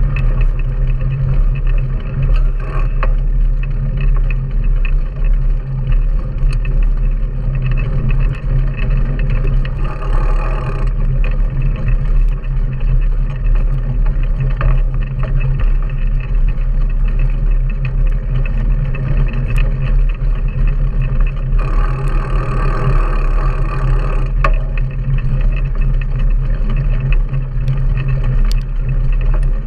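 Wind rumbling over the microphone of a handlebar-mounted action camera on a mountain bike riding a dirt track, mixed with the rolling noise of knobby tyres. About ten seconds in and again a little past twenty seconds, a rougher hiss rises for a second or so.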